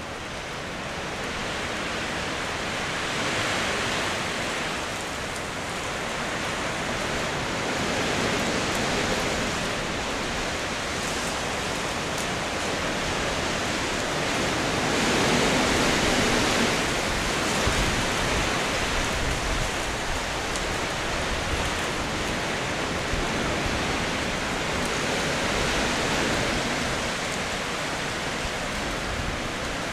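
Wind gusting through trees and foliage, a rustling hiss that swells and eases every few seconds, loudest about halfway through.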